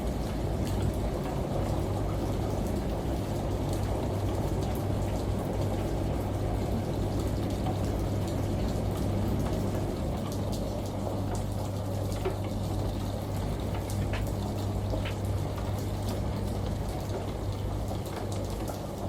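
Steady running-water noise over a low, even hum, with scattered faint drips and ticks: a layered ambience of a washing machine with rain and shower water.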